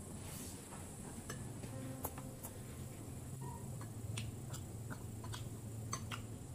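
Close-miked eating: chewing with sharp clicks scattered at irregular intervals, a few each second.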